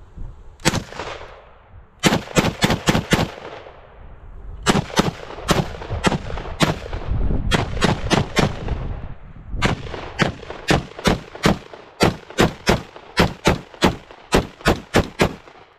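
Springfield Armory Hellion bullpup rifle with a 20-inch barrel firing 5.56 NATO in fast semi-automatic fire: a single shot near the start, then several quick strings of shots with short pauses. Over the last six seconds it settles into a steady run of about three shots a second, each crack ringing out briefly.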